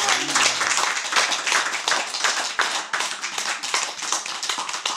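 A small group of people applauding by hand, a dense patter of claps that thins slightly toward the end.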